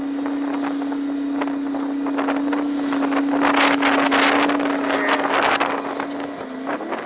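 Diesel train standing at a platform: a steady engine hum with scattered clicks. A louder hiss swells midway, and the hum's pitch dips and rises again near the end.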